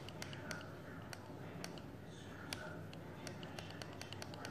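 Small buttons on a ParkOne electronic parking disc clicking as they are pressed over and over to set its clock and date: a quick, irregular run of faint clicks.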